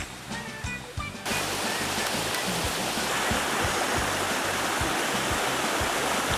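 Background music with a steady beat. About a second in, the loud, even rush of flowing stream water cuts in over it.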